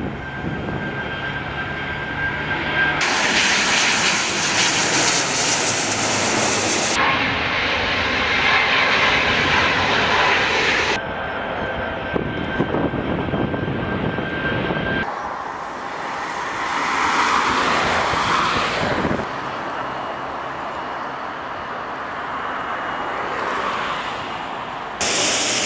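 Jet engines of a twin-engine widebody airliner running at takeoff power through the takeoff roll, lift-off and climb-out. The sound changes abruptly every few seconds where separate shots are spliced together.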